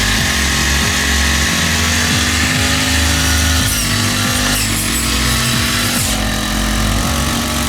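Small petrol engine of a grass-cutting machine running steadily, with a brief higher-pitched whine about four seconds in.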